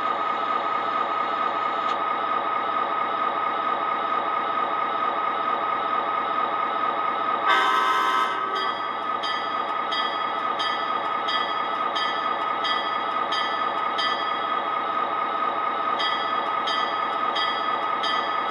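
Model F40PH diesel locomotive's onboard sound system idling steadily with a diesel engine hum while the model stands still. About seven seconds in it gives one short horn toot. Then its bell rings at about one and a half strokes a second, pauses briefly, and starts again near the end.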